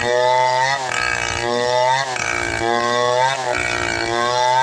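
Chainsaw engine running at high revs while cutting wood. Its pitch sags under load and recovers roughly once a second as the bar is worked through the cut.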